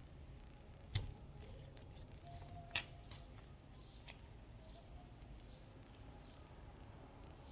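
Faint sticky clicks and squelches of glue slime being worked and stretched in the hands, with two sharper clicks, about one second in and near three seconds.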